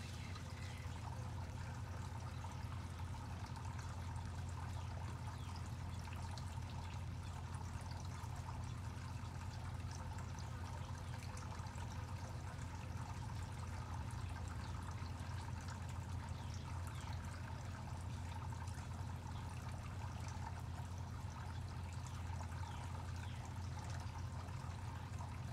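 Steady trickle of running water with a low hum underneath, unchanging throughout.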